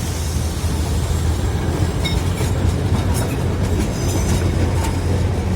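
Darjeeling Himalayan Railway narrow-gauge train running, a steady low rumble with light clicking of wheels over the rails.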